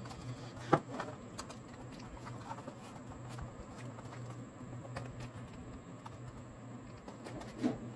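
Cardboard being handled and pressed by hand: faint scattered taps and rustles, with one sharper tap about a second in, over a steady low hum.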